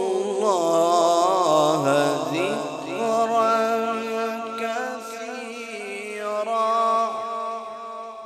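Male qari's voice in melodic Quran recitation (tilawat): one long, ornamented phrase with wavering pitch at first, then held notes, fading away near the end.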